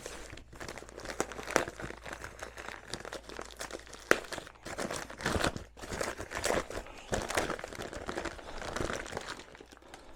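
Packing paper being crumpled and crinkled by hand while exhaust parts are unwrapped, an irregular crackling with a sharper crackle about four seconds in.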